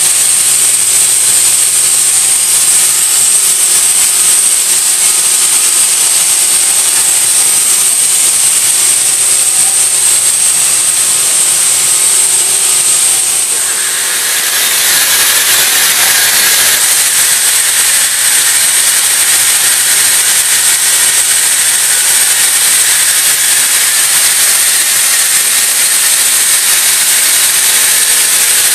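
Steady, loud mechanical hiss with a thin high whine running through it, typical of machine-shop equipment running. About halfway through the hiss briefly dips, then turns broader and harsher with an added mid-pitched tone.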